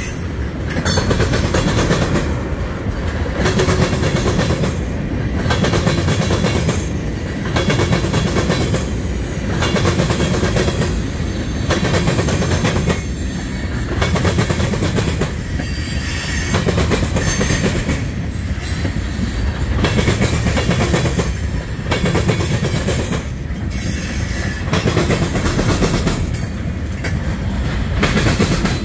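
Freight train cars rolling past close by, mostly tank cars and a loaded centerbeam flatcar: steel wheels clacking on the rails under a steady rumble. The sound swells and eases about every two seconds as each set of wheels goes by.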